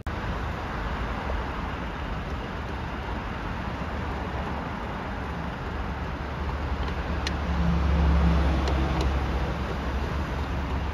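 Road noise from inside a moving car: a steady rumble of tyres and traffic that swells around eight seconds in, with a few faint ticks.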